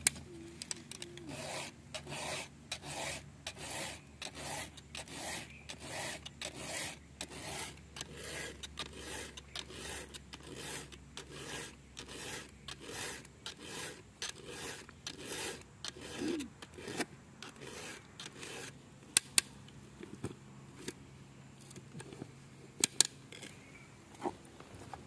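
A round file drawn across the cutters of a chainsaw chain to sharpen it, in rhythmic rasping strokes about twice a second. The strokes stop about three-quarters of the way through, and a few sharp clicks follow.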